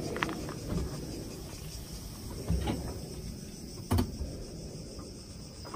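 A full aluminium beer can crushed under a car tyre on concrete: a crunch and burst about two and a half seconds in, then a sharp crack about four seconds in.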